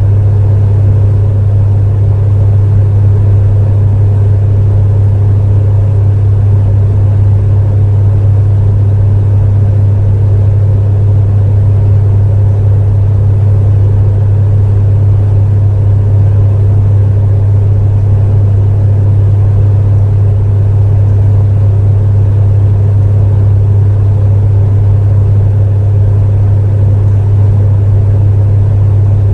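Space heater running steadily: a loud, constant low hum with a softer even rush of fan air above it.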